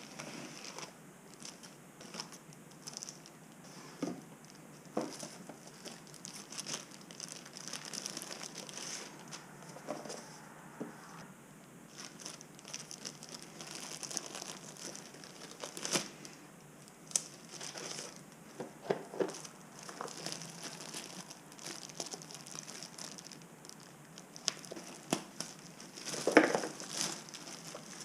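Packaging of a GoPro Hero 8 Black being opened by hand: plastic and paper crinkling and tearing, with scattered light clicks and taps, and one louder knock near the end.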